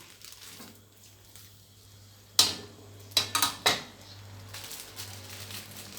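Metal spoon knocking against a cooking pan as spoonfuls of red curry paste are tipped in: one sharp knock about two seconds in, then three quick knocks about a second later.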